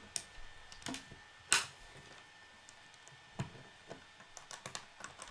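Plastic K'nex pieces clicking as connector rods are pressed into the parts and set down on the wooden table. A scattering of sharp clicks, the loudest about a second and a half in, and a quick run of small ticks near the end.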